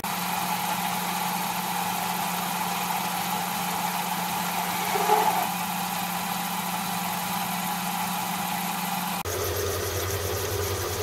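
Metal lathe running steadily with a constant motor hum while taking a half-millimetre turning cut on a shaft held in a collet chuck. About nine seconds in, the hum drops to a lower pitch.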